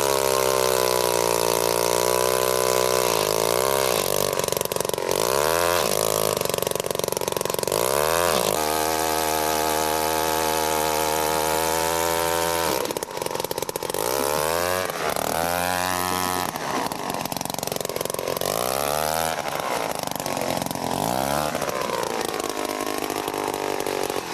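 Gas-powered ice auger's two-stroke engine running hard while it drills through lake ice, its pitch dropping and rising again several times as the bit bites and frees up.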